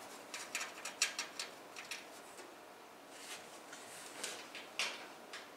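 Light metallic clicks and ticks as motherboard standoffs are threaded by hand into the PC case's mounting holes: a quick run of clicks at the start, then a few single ones.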